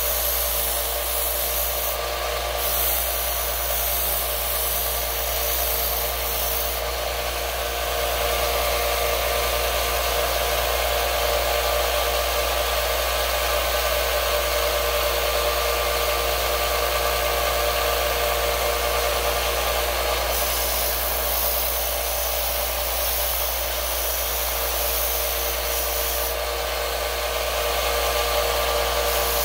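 Small bench belt sander running with an 80-grit belt, a pitted metal tool held to it with light pressure: a steady motor hum and whine under a continuous grinding hiss that swells and eases a few times as contact changes.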